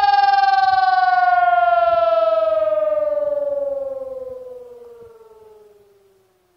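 HES 1200 civil defense siren winding down: its single tone falls steadily in pitch, stays loud for a few seconds, then fades away over the last few seconds.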